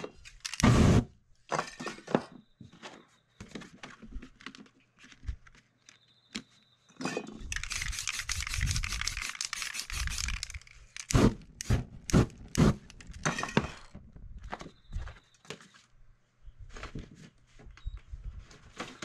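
Aerosol spray paint can hissing for about three and a half seconds in the middle. Scattered sharp knocks, taps and clicks from handling come before and after, the loudest knock about a second in.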